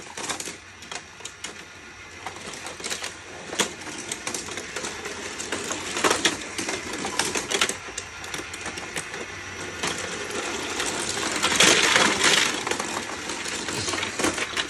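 Small die-cast Tomica toy cars clicking and clattering against a plastic play-set ramp and track as they are handled and pushed along, with a denser burst of rattling about twelve seconds in.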